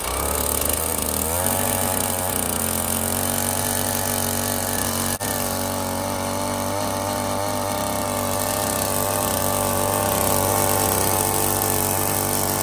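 Gas-powered ice auger's small engine running steadily under load as its red spiral bit drills down through lake ice, with one brief dip about five seconds in.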